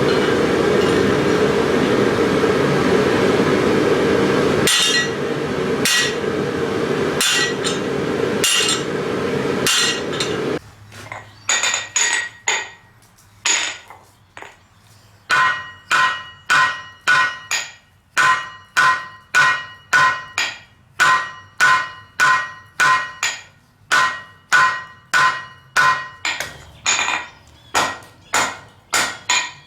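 Hammer blows on steel against an anvil, settling into an even rhythm of about two strikes a second, each with a ringing note. For the first ten seconds or so the blows fall over a loud steady rushing noise, which then stops.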